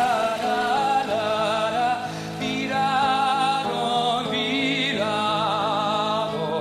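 A male lead vocalist singing a Hungarian folk song live with a wavering vibrato, over steady acoustic guitar accompaniment.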